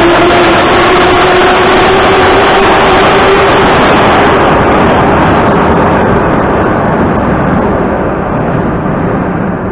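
Moscow Metro train pulling out of the station, its traction motors whining upward in pitch as it picks up speed over loud wheel-on-rail noise. The noise fades over the last few seconds as the train recedes into the tunnel.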